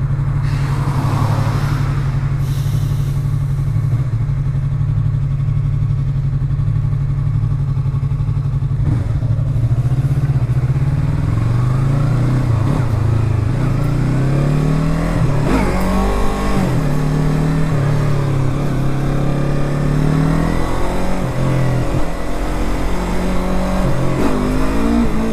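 Yamaha YZF-R3's parallel-twin engine idling steadily for about nine seconds, then pulling away and revving up through several gears, the pitch climbing and dropping back at each upshift.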